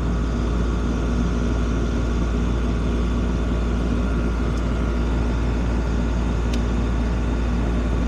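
Outdoor unit of an old ICP heat pump running with a steady hum and the rush of its condenser fan. The fan motor is turning again on a new run capacitor after the old one failed.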